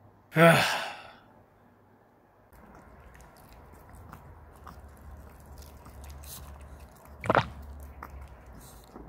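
A loud sigh with falling pitch near the start. Then a Pomeranian chews a dried beef tendon treat, with many small crunchy clicks, and there is one short loud sound about seven seconds in.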